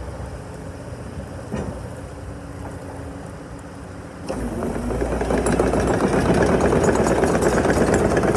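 Terex TC125 excavator's diesel engine: a low steady hum with a single click, then about four seconds in the engine sound suddenly gets much louder and stays at a rough, heavy running level.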